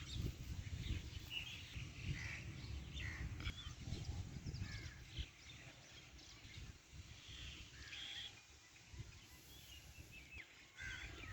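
Faint outdoor ambience: birds chirping here and there over a low rumble that fades after about five seconds.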